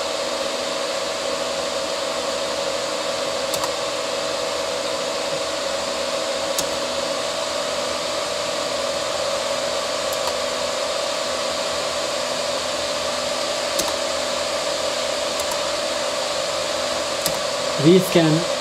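Cooling fans of an IBM System x3650 M1 server running steadily: a constant whirring hiss with a steady hum tone in it, and a few faint clicks.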